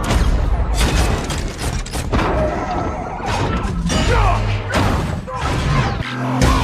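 Film action soundtrack: a quick run of crashes, smashes and heavy thuds over dramatic score music, the impacts of a violent hit.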